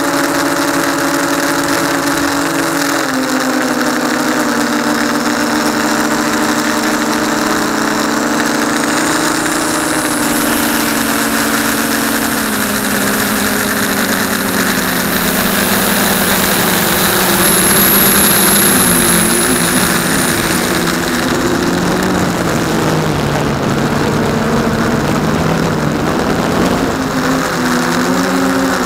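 F450 quadcopter's motors and propellers humming steadily, heard close up from the camera on board as the craft descends. The pitch of the hum drops a few times as the throttle eases and rises again near the end.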